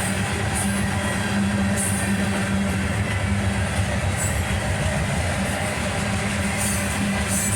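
Freight train rolling past: a steady rumble of the cars on the rails, with short high-pitched bursts every second or two.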